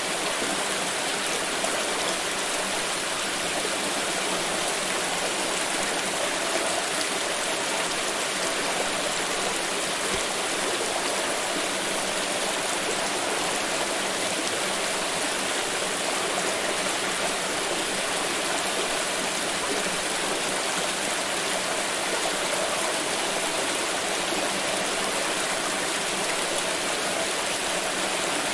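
Water pouring in a steady, unbroken stream, an even splashing rush that holds at the same level throughout.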